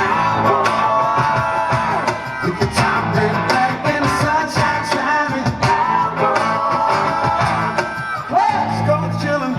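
Live rock band playing loudly through a PA, with electric guitar and a steady drum beat.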